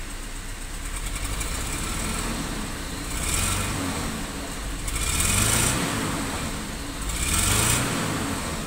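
Mitsubishi Kuda petrol engine heard at the exhaust tailpipe, idling and revved three times, each rev rising and then falling back to idle. The engine runs rough with a persistent misfire and is burning oil, worn enough to need an overhaul.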